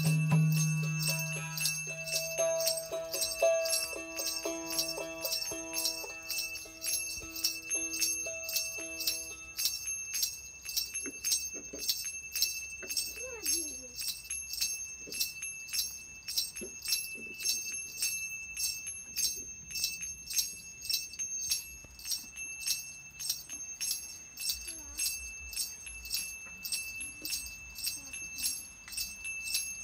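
Small metal bells or hand cymbals jingling in a steady beat, each stroke ringing high and bright. Sustained musical notes underneath fade away in the first ten seconds, leaving the jingling almost alone.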